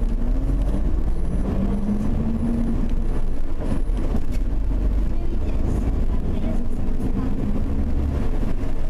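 Engine and road rumble of a moving vehicle heard from inside it, a steady low rumble with an engine note that rises and falls a little as it drives.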